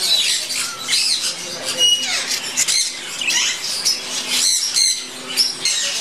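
A flock of budgerigars chattering and squawking, with many quick rising and falling chirps overlapping.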